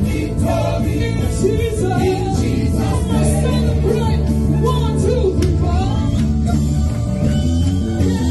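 Gospel worship music: a band with sustained bass and keyboard notes under wordless, wavering vocal lines.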